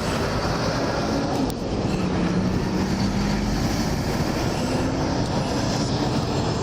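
Steady traffic rumble with a low engine hum that wavers slightly in pitch.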